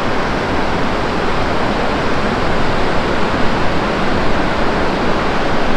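A river's water rushing steadily.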